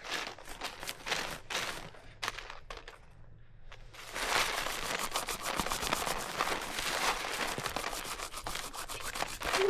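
Dense, irregular crackling and rustling, with a brief lull, then louder and busier from about four seconds in.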